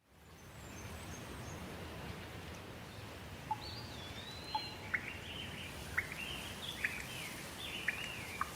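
Steady hiss of rain with a songbird singing: from about a third of the way in, warbling whistled phrases that glide up and down, punctuated by short sharp chip notes about once a second.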